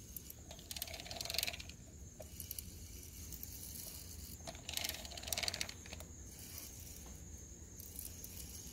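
Half-inch-drive socket ratchet clicking in two short runs, about a second in and again about five seconds in, while it turns the tap stud of an injector cup removal tool so that it threads into a 7.3L Powerstroke injector cup.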